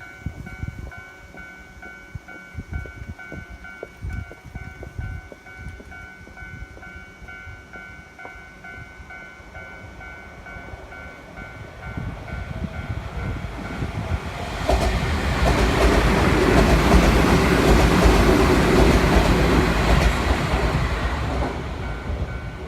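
Japanese railroad crossing warning bell ringing in a steady repeating pattern while a Keio Inokashira Line electric train approaches from about halfway through, passes over the crossing loudly for about six seconds, and begins to fade near the end.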